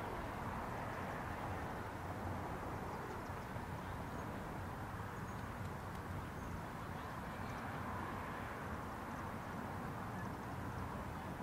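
Steady outdoor background noise, a low rumble and hiss with no distinct events, and a few faint high chirps in the middle.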